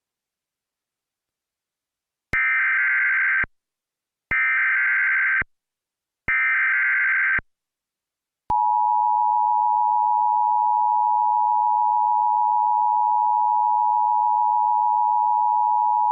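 Emergency Alert System opening: three one-second bursts of buzzy digital data tones, about a second apart, which is the SAME header. About eight seconds in, the steady two-tone EAS attention signal starts.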